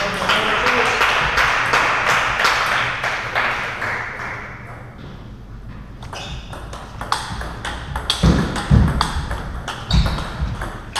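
Table tennis ball clicking off bats and table, many sharp ticks in quick succession, thinning out about halfway through before a rally resumes. A few low thuds come in the last few seconds.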